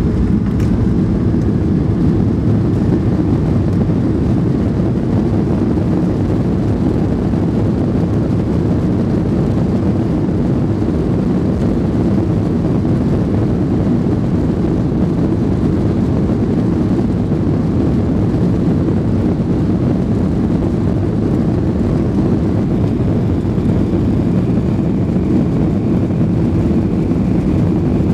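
Steady, even rumble of a Boeing 737-800 heard from inside the cabin: the CFM56-7B turbofans and the airflow, with no change in pitch.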